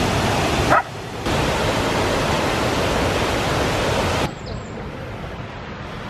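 Sgwd yr Eira waterfall: a steady roar of falling water, with a brief sharp yelp just before a short break about a second in. About four seconds in, the roar drops away to a much quieter hiss.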